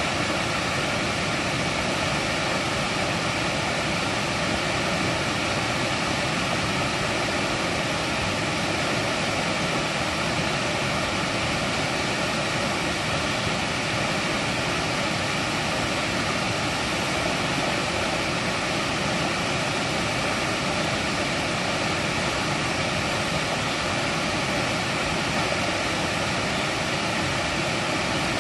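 Mountain stream water rushing steadily over rocks, a dense, even rush with no breaks.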